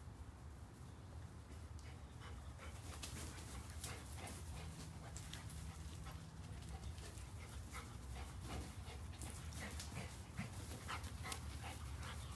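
A puppy and an older dog playing, with panting and a quick, irregular run of short sharp sounds from about two and a half seconds in.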